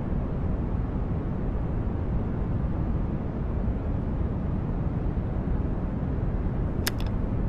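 A steady low rumbling noise runs throughout. Near the end it is broken by two quick sharp clicks from the radio's switch being worked.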